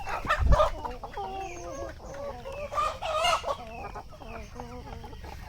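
A flock of free-range desi chickens clucking and calling over one another, with louder calls about three seconds in that include a rooster crowing. A dull thump comes about half a second in.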